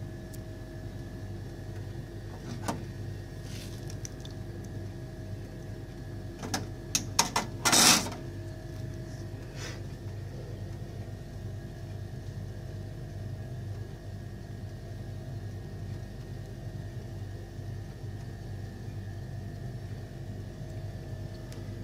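Steady electrical hum from buffet appliances, with a light click about three seconds in and a short run of sharp metallic clicks and clatter, loudest about eight seconds in.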